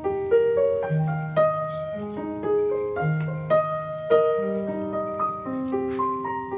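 Background piano music: a gentle melody of single struck notes, about two to three a second, over slow held bass notes.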